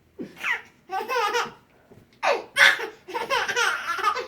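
A baby laughing in several high-pitched bursts, with a short pause about halfway through.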